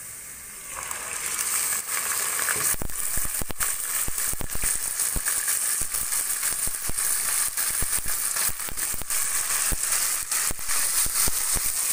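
Raw chicken pieces frying in hot oil with browned onions in a pot. A loud sizzle sets in about a second in as the chicken hits the oil, and from about three seconds in it carries a steady run of sharp crackles and pops from the spattering oil.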